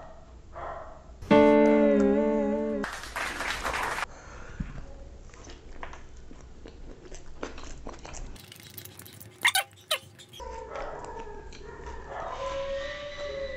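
A dog howls once: a long, slightly wavering howl lasting about a second and a half, followed straight away by a brief rushing noise. Fainter clicks and small sounds fill the rest.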